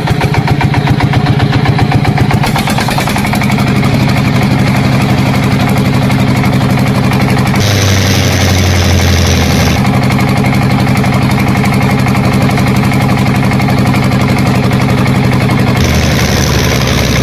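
An engine running steadily at an even idle. A second, rougher engine-like layer with more hiss cuts in for about two seconds near the middle, and again near the end.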